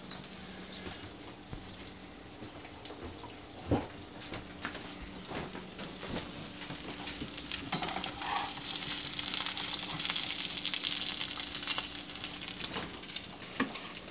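Egg frying in bacon grease in a pan: a hissing sizzle with crackling spatter that swells louder through the middle and eases off near the end. A single knock comes about four seconds in.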